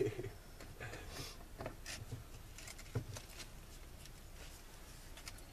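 Faint, scattered clicks and scrapes of 1½-inch PVC pipe and a 90° elbow being handled and fitted together as the glued joint is made.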